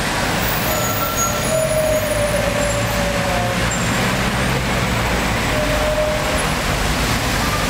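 Road traffic at a city junction: car and taxi engines running and passing, a steady low rumble.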